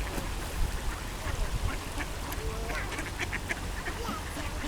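A large flock of mallards quacking and calling over one another, the calls thickest in the second half, over a steady low rumble.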